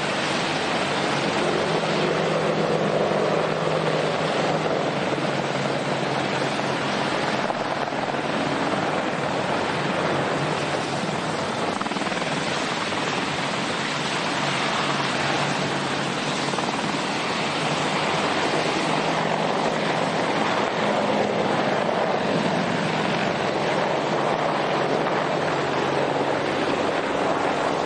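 AH-64D Apache attack helicopter in flight, a steady dense rush of rotor and turbine noise with a faint low hum underneath.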